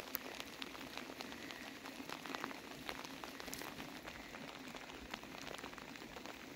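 Faint light rain pattering: a steady hiss of fine drops with many scattered small ticks.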